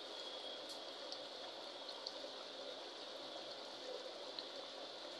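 Chicken karahi gravy boiling hard in a large aluminium pot: a steady bubbling with faint small pops as the masala cooks down.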